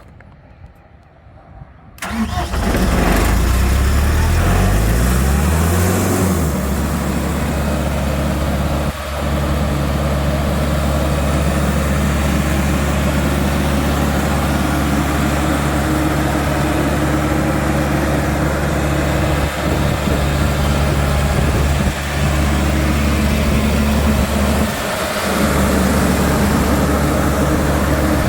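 Sullair 185 CFM air compressor's Caterpillar C2.2 diesel engine starting about two seconds in, rising in speed for a few seconds, then running steadily.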